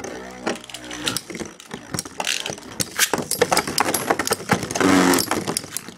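Several Beyblade spinning tops with metal fusion wheels whirring in a plastic stadium. Many sharp clicks and clatters come as they knock into each other and the walls, and the whirring swells about five seconds in.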